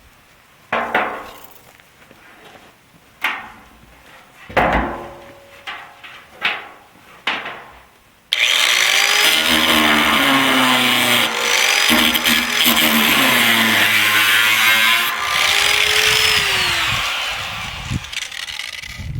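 Ryobi P521 18-volt cordless variable-speed orbital jigsaw cutting through the steel lid of a barrel. Several short sharp bursts come first, then the saw runs loud and steady for about ten seconds, its pitch dipping and rising as the speed changes, before winding down near the end.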